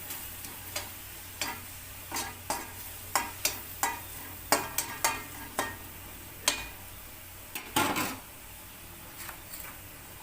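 A utensil stirring and scraping a pan of tomato-and-spice masala cooking in oil, with irregular clicks and scrapes and a low sizzle. A longer scrape comes about eight seconds in, and then the stirring stops.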